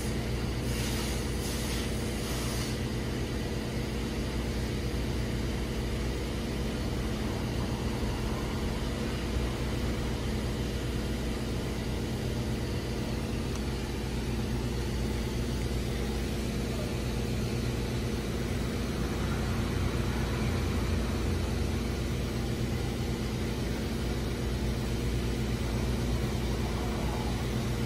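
Car wash equipment running with a steady low machine hum under the hiss of water spraying from a hose.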